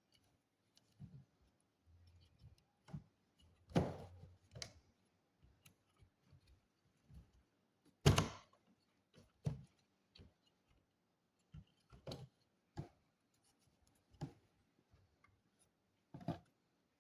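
Irregular light clicks and knocks from handling small hardware and tools on an all-in-one PC during a RAM upgrade, about a dozen in all, the loudest knock about eight seconds in.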